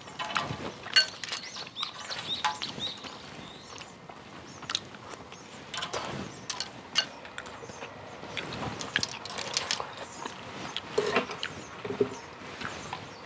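Close-miked eating sounds of clam kalguksu: irregular slurps, chewing and smacking, with many short clicks scattered throughout.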